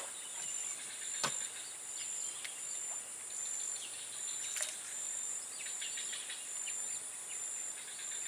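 Insects droning steadily at a high pitch, with a faster pulsing note running under the drone. Two faint clicks, one a little after a second in and one past the middle.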